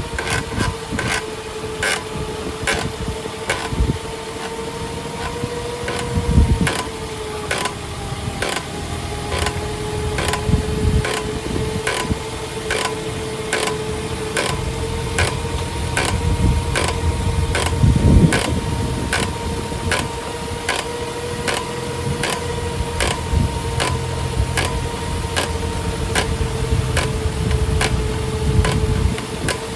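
Inside a moving Toyota Avanza Veloz: a steady hum with a constant mid-pitched tone, a regular ticking about twice a second, and a few low knocks, loudest about six seconds in and again around eighteen seconds.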